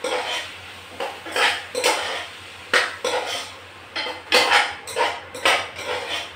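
A spoon scrapes and clinks irregularly against a small metal saucepan as chopped onions and whole spices are stirred while frying in mustard oil.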